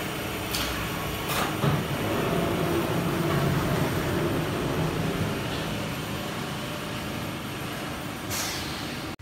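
Steady rumble of factory machinery in a large hall, swelling for a few seconds near the start, with a few sharp clicks and knocks.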